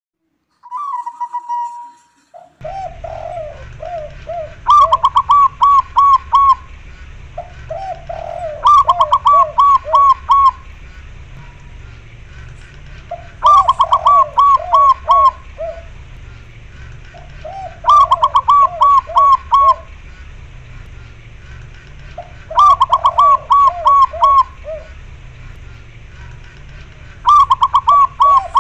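Zebra doves (perkutut) cooing: a rhythmic phrase of about five quick, pitched coos, repeated roughly every four to five seconds, each led in by a lower-pitched run of coos. A steady low hum sits underneath.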